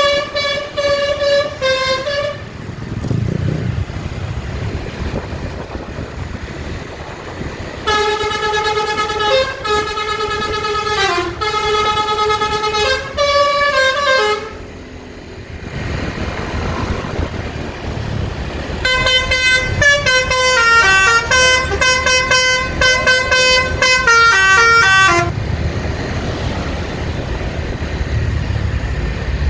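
Tour bus 'telolet' Basuri multi-tone horn playing quick melodies of changing toots three times: briefly at the start, then for about six seconds from about eight seconds in, and again from about nineteen seconds in. A low engine and traffic rumble fills the gaps.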